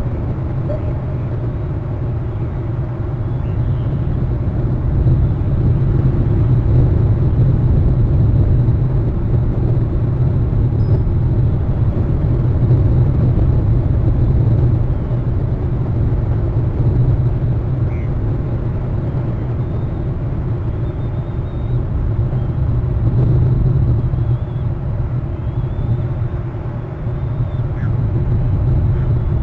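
Wind rumbling on the outdoor microphone of a treetop nest camera, a steady low rumble that slowly swells and eases, with a few faint high chirps now and then.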